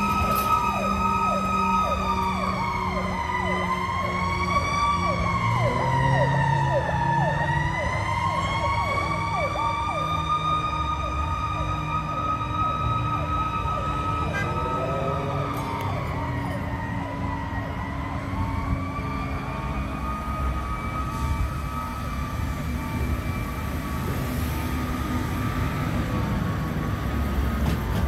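Fire engine sirens sounding. A long wailing tone holds its pitch, sagging and recovering slowly several times. Under it a fast yelping siren repeats several times a second for roughly the first eight seconds. The trucks' engines rumble low underneath.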